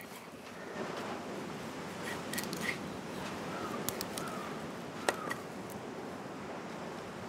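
Knife scoring a whole raw chicken on a wooden chopping board: soft cutting and scraping with a few sharp clicks of the blade, over a steady background hiss. A few short chirps sound around the middle.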